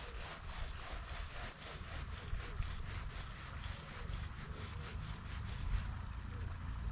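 Fly line being stripped in with quick short pulls, a rapid rhythmic rubbing of line through the fingers and rod guides at about five strokes a second, stopping about six seconds in: a streamer being retrieved on a sinking line.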